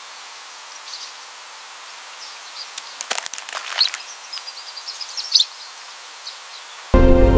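Small birds giving short, high chirps over a steady background hiss, with a few sharp clicks about three seconds in; music comes in near the end.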